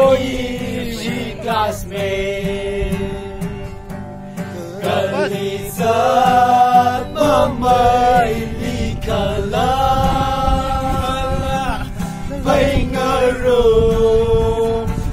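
A group of voices singing a song together in unison, with drawn-out held notes and short breaks between phrases, over an acoustic guitar.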